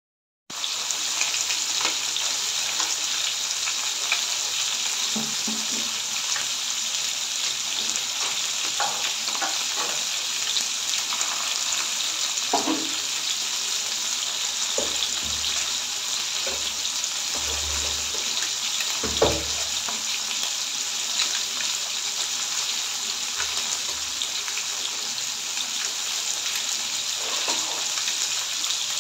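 Fish steaks shallow-frying in hot oil: a steady sizzle with scattered crackles and a few louder pops.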